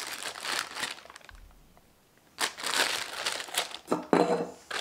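Clear plastic bag crinkling and rustling as it is handled and pulled open around a boxed light, in two spells with a quiet pause of about a second between.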